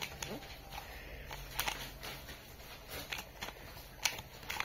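Plastic pieces of a Moyu pyraminx clicking as its faces are turned quickly by hand: a string of light, irregular clicks.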